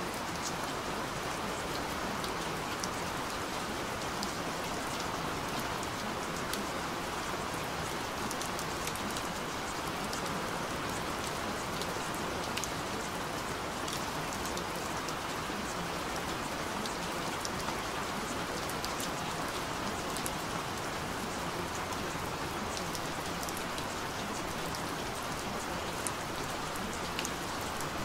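Steady rain falling, an even hiss with a fine patter of drops.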